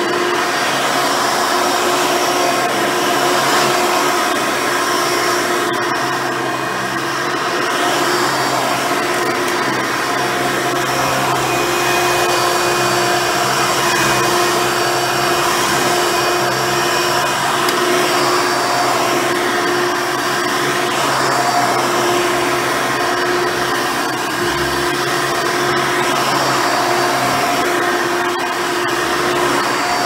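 Hoover Elite 350 upright vacuum with an upgraded 7-amp motor running steadily while being pushed over a rug. Its single-row bristle brush roll is working the carpet pile.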